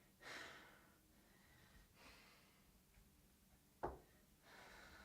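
Near silence with a few faint breaths and a single short click a little under four seconds in.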